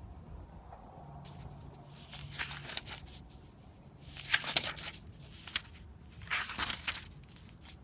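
Thin Bible pages being turned by hand: three rustling flips of the paper, the loudest about halfway through, with a short sharp click between the last two.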